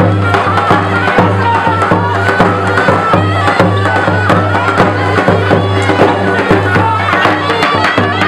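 Tulum bagpipe playing a fast, ornamented horon dance tune over a steady low drone, with a regular beat of sharp knocks.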